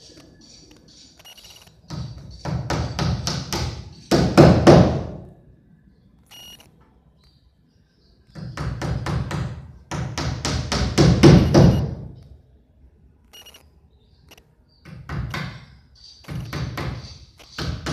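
Rapid knocking in three bursts of a few seconds each, with short pauses between.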